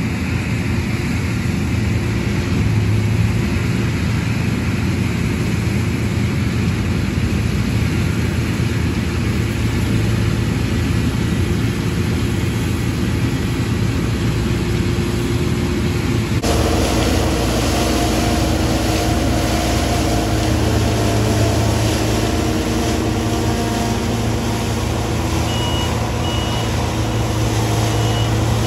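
Claas Tucano combine harvester running under load while cutting and threshing rapeseed: a steady engine and machinery drone with a strong low hum. About 16 seconds in the sound jumps to a closer position, with several steady whining tones from the drives. Near the end a run of short high beeps repeats about twice a second.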